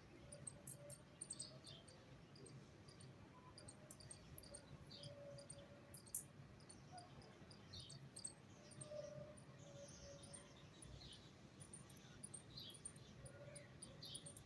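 Faint, high-pitched chirping of small birds: many short calls in quick succession, some with quick downward slides.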